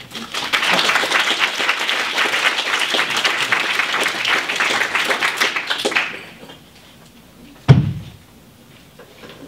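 Audience applauding, dying away after about six seconds; a little later a single sharp thump, the loudest sound here.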